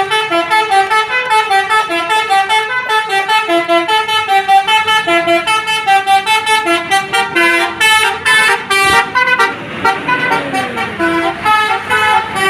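Bus 'telolet' multi-tone horn playing a rapid melody of short stepped notes. Near the end the notes thin out and a lower tone slides down in pitch.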